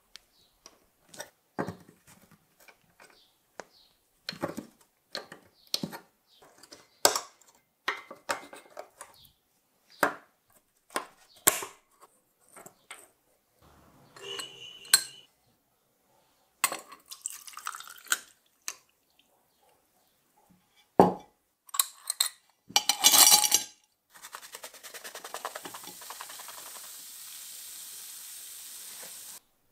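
Thin tinplate parts of an old toy pistol being worked with pliers: a run of separate sharp clicks and metal scrapes as the fastening tabs are bent. Small metal parts clink against a glass beaker, and near the end comes a steady hiss lasting about five seconds that cuts off suddenly.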